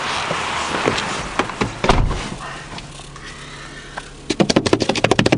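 Rustling as a person climbs into a car, then a car door shutting with a low thump about two seconds in, leaving the engine idling inside the cabin. Near the end comes a rapid flurry of clicks and flaps as the dove on the wiper beats its wings against the windshield.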